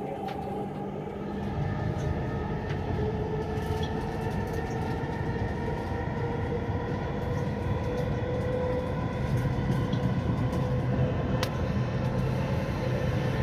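Dubai Metro train heard from inside the carriage while running: a steady rumble with a steady whine from the drive, growing louder about a second and a half in.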